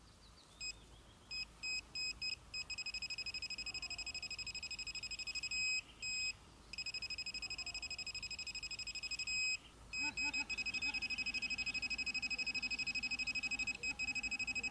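GP Pointer 2 handheld pinpointer beeping as it is probed in a dug hole: a few short high beeps, then a rapidly pulsing high tone held for several seconds at a time, breaking off twice, the pinpointer's alert to metal close to its tip. About ten seconds in, a low buzz joins the beeps and pulses with them.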